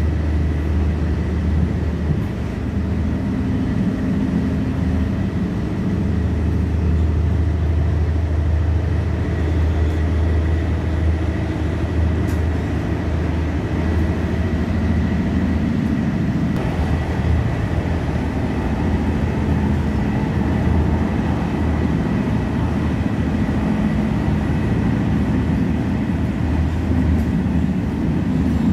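Steady rumble of a passenger train in motion, heard from inside the carriage: a continuous low drone with a thin, faint steady whine above it.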